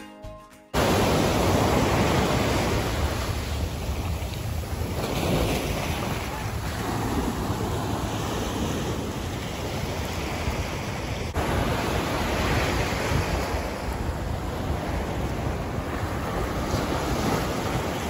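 Ocean surf breaking and washing up a sandy beach, swelling and easing with each wave, with wind rumbling on the microphone. Background music cuts off sharply under a second in.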